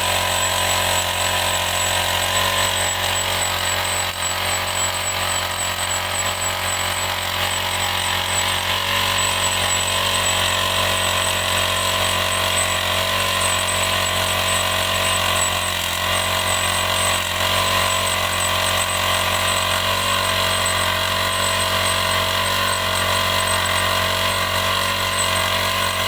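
Rail drilling machine running steadily: a continuous machine hum with a thin high whine.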